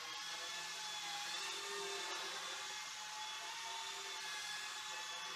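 Small Modster BO-105 RC helicopter in flight: a steady whirring whine from its motor and rotors, with a pitch that wavers gently up and down. The rotor has fixed-pitch blades, so the helicopter climbs and sinks by changing rotor speed alone.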